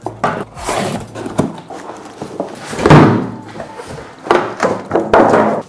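Cardboard box and packing being handled: flaps and foam packing blocks knocking and scraping, with a louder cardboard scrape about three seconds in.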